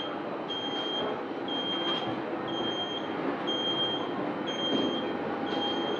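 A high electronic warning beep repeating about once a second, each beep about half a second long, over a steady hum of aircraft cabin and ground noise.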